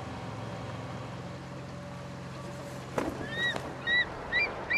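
A boat's motor runs with a steady low hum, then cuts off suddenly about three seconds in. Birds then call in short, clear chirps that rise and fall, roughly two a second.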